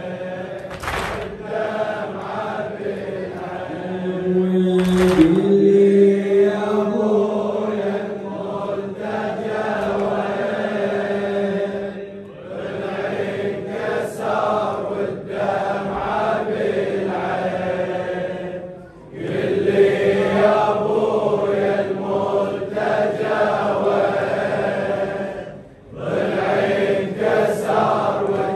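Men chanting a Shia mourning elegy (latmiyya) in long repeated phrases of about six to seven seconds, with short breaks between them.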